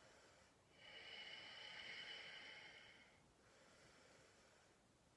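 Faint breathing from a person holding a seated forward fold: one long, soft exhale starting about a second in and lasting about two seconds, then quieter breath.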